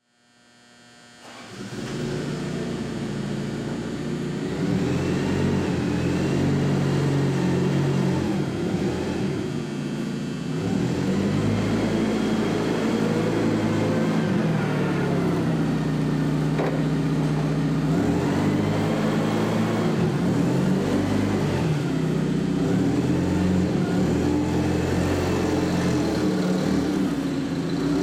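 Caterpillar propane forklift's engine running while it is driven, its speed rising and falling with the throttle. A high whine rises and falls along with the engine, and there is a single sharp click about two-thirds of the way through.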